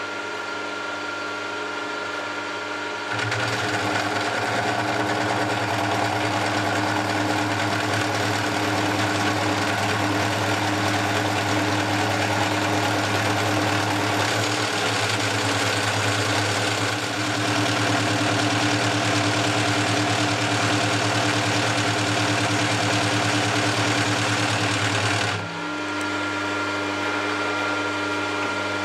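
Milling machine running a four-insert face mill across a tough steel parting-off blade, a steady cutting noise over the spindle's hum. The cut gets louder about three seconds in as the cutter engages, then drops back to the spindle running on its own near the end.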